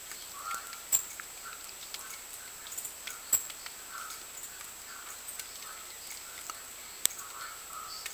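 Birds at a feeder: scattered sharp taps and clicks, three louder ones about a second, three seconds and seven seconds in, with faint soft calls between them. A thin, steady high-pitched whine runs underneath.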